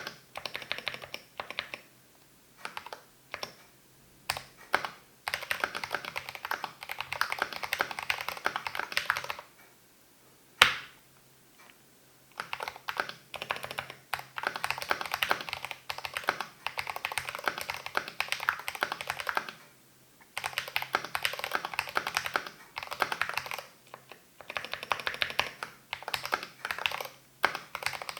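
GMMK Pro mechanical keyboard with lubed Cherry MX Speed Silver linear switches and MT3 keycaps being typed on. It starts with a few scattered keystrokes, then goes into long runs of fast typing broken by short pauses, with one louder single clack about ten seconds in.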